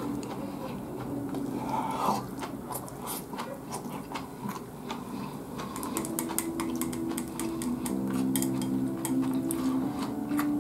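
Chopsticks clicking against a ceramic rice bowl and chewing while eating rice, a run of short clicks. Background music with held notes comes in about halfway through.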